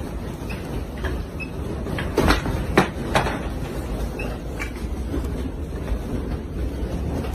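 A steady low rumble with a cluster of sharp knocks or clatters about two to three seconds in, the loudest near the middle, and a few fainter ticks scattered around them.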